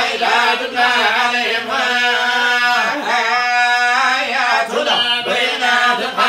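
Men's voices chanting unaccompanied, a religious chant sung in long, ornamented held notes.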